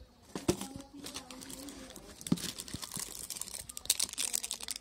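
Chocolate bar wrappers crinkling and rustling as a hand rummages through a plastic jar of candy bars and pulls one out, with a couple of light knocks along the way; the crinkling is densest in the second half.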